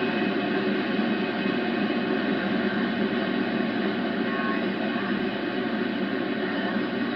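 Satellit 750 shortwave receiver's speaker giving a steady hiss of band noise while tuned to single sideband near 14.176 MHz on the 20-metre amateur band, with no station coming through.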